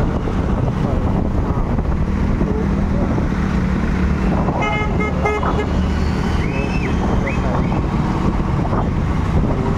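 Motorcycle engine running steadily in city traffic, with wind on the microphone. A vehicle horn honks in about three quick toots around five seconds in.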